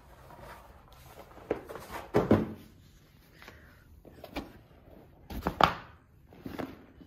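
A few thumps with rustling handling noise in between, as a rubbery yoga mat is handled, unrolled and laid down on a shaggy rug; the loudest knocks come about two seconds in and about five and a half seconds in.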